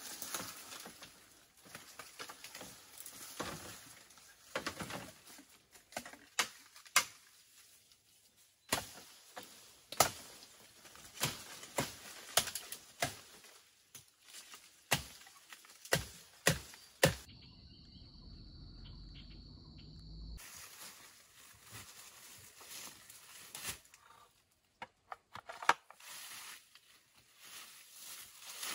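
Rustling of leaves and dry brush broken by many sharp snaps and cracks, some loud, as someone works and moves through a bamboo thicket. A little past the middle comes a few seconds of low rumble.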